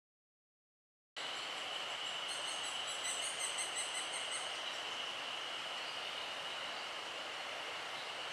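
Silence for about a second, then forest ambience: a steady, even insect drone at one high pitch over a light hiss. A quick run of very high bird chirps comes in a couple of seconds after the sound returns.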